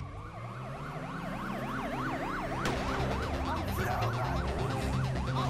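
Electronic emergency siren that winds up and then, about a second and a half in, switches to a fast yelp, its pitch swinging up and down about four times a second and growing louder, over background music.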